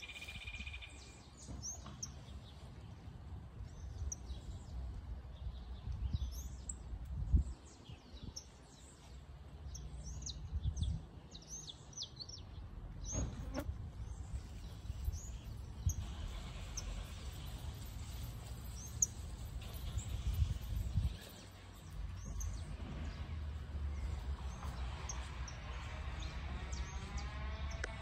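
Small songbirds chirping and calling in the trees: many short, high chirps scattered throughout, over a steady low rumble.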